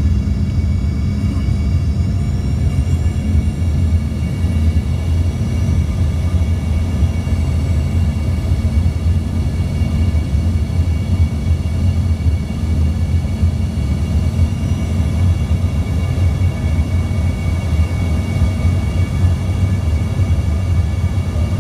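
Jet airliner cabin noise during the approach with flaps extended: a steady low rumble of airflow and engines, with a layer of thin steady whining tones above it that shift slightly upward in pitch in the first few seconds.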